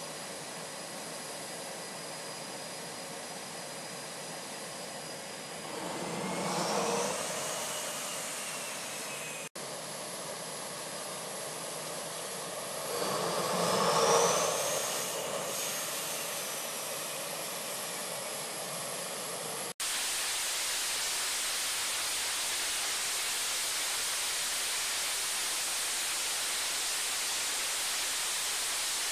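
F/A-18 jet engines running with a steady turbine whine that swells louder twice, its pitch rising and then falling back each time. After a sudden cut about two-thirds of the way in, the whine gives way to an even, steady rushing noise.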